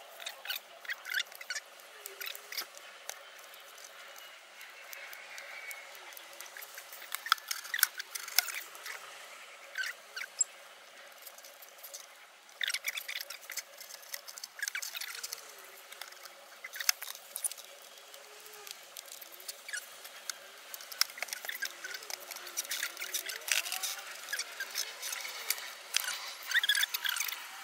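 Close handling noises of a handmade clock being assembled on a table: an irregular run of small scratches, taps and clicks, with louder clusters every few seconds.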